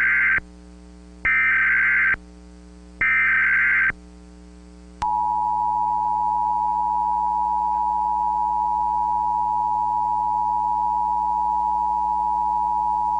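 Emergency Alert System tones. First come three short screeching bursts of SAME header data, a second or so apart, which encode the alert. About a second after the last burst, the steady two-tone EAS attention signal begins and sounds for about eight seconds, marking the start of an emergency alert message.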